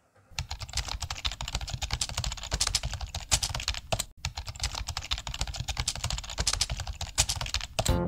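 Rapid keyboard typing sound effect, a fast unbroken patter of key clicks with a brief break about halfway through, played under text that types itself onto the screen.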